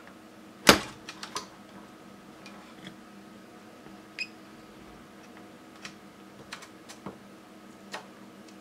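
Hands working on a laser toner cartridge: one sharp knock about a second in, then scattered lighter clicks of parts being handled. A faint steady hum runs underneath.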